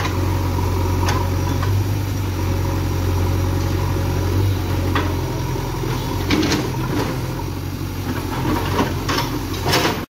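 JCB 3DX backhoe loader's diesel engine running steadily, its note changing about halfway through as the backhoe bucket drags the machine forward over rubble. Several sharp knocks and clatters come in the second half.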